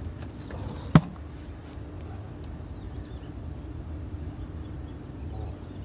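A single sharp click about a second in over a steady low rumble.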